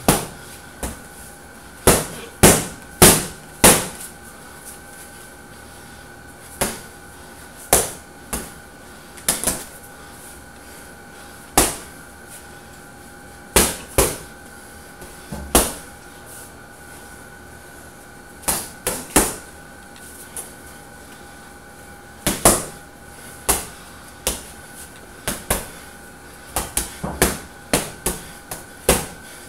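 Boxing gloves punching a hanging heavy bag: sharp thuds, some single and some in quick combinations, with pauses between, and a fast run of punches near the end. A faint steady hum sits underneath.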